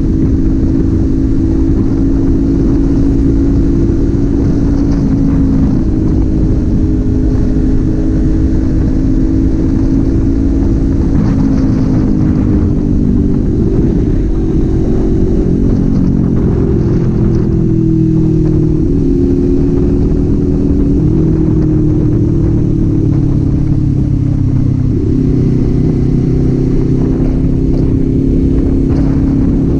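Kawasaki Z400's parallel-twin engine and exhaust under way on the road, its note rising and falling with throttle and gear changes, with a clear jump in pitch about 25 seconds in.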